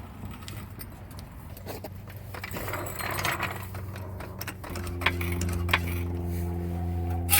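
Light clicks and clatter of tools being handled, then a motor starts about two-thirds of the way through and runs with a steady low hum.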